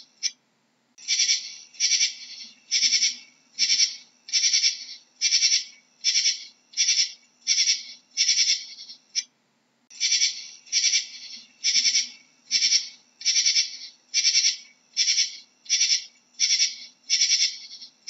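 Katydid calling: a steady series of short, dry, high-pitched rasps, a little more than one a second, with a brief pause about halfway through.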